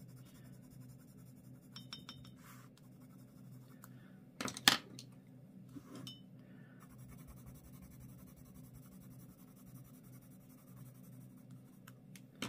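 Soft scratching of an Inktense coloured pencil on a paper swatch card as two colours are blended together, with a few faint clinks about two seconds in and one sharp knock on the desk about four and a half seconds in.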